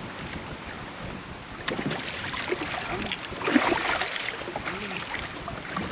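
Wind and small waves lapping against the side of a bass boat, with a few short knocks and splashes at the boat's side, the loudest about three and a half seconds in.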